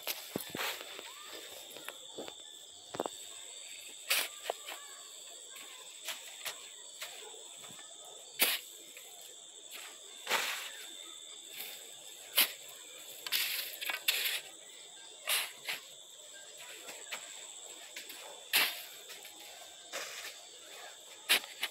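A shovel scraping and throwing sand and earth onto a mound charcoal kiln to seal it, in short irregular strokes every second or two. Under it runs a steady, high-pitched insect drone.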